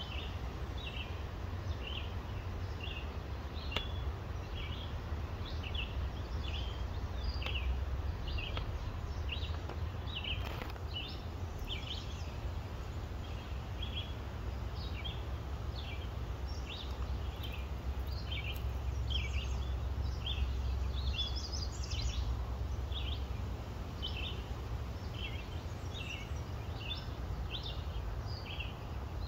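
Birds chirping in short, quick notes, about two a second, over a steady low rumble.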